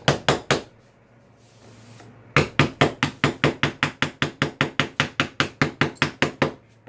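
Mallet tapping the wooden handle of a carving chisel, driving the blade into the wood in quick, even strokes about five a second. The tapping stops briefly after the first half second and resumes about two and a half seconds in.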